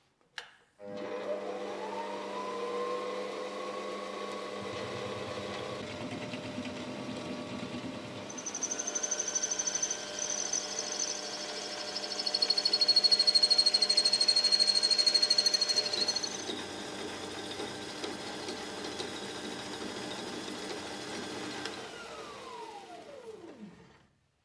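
Workshop machine's electric motor switched on with a click, spinning up with a rising whine and then running steadily. A high-pitched squealing joins in about 8 seconds in, loudest midway, typical of a tool cutting metal. The motor is then switched off and winds down with a falling whine.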